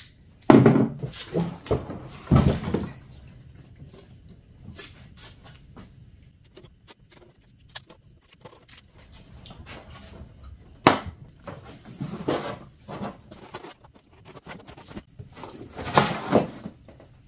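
Tape being pulled off a roll in a couple of quick rips in the first few seconds, then scattered handling noise from plastic parts and wiring, with a sharp knock about eleven seconds in and another noisy burst near the end.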